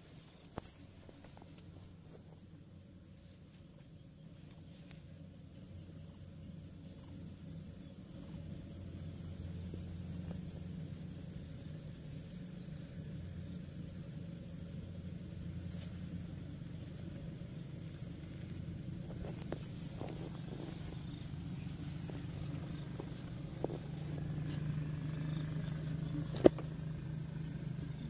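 Night insects such as crickets trilling steadily over a low hum that swells during the first ten seconds or so. A few faint clicks and one sharp knock near the end come from hands and a stick working in the soil.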